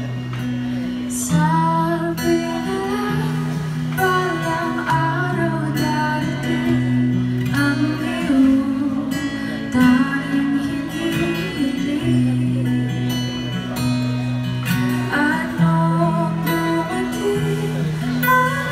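Acoustic guitar playing a slow song's chords live, the notes held and changing every second or two, with a melody line above.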